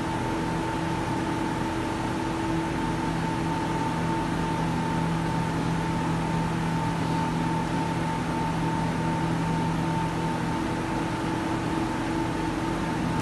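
Steady hum and fan rush of commercial kitchen machinery, holding several fixed tones; a lower hum joins a couple of seconds in and fades near the end.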